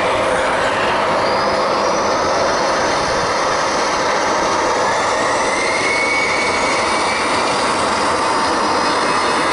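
Airbus A320-214's CFM56 jet engines running at high power: a loud, steady roar with high whining tones that slide up in pitch.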